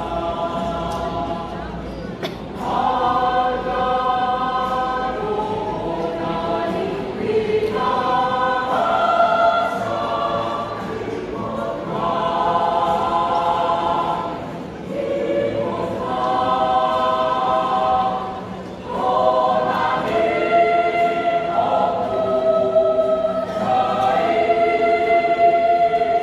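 Choir singing unaccompanied in sustained chords, with short breaks between phrases about two and a half seconds in, then twice later.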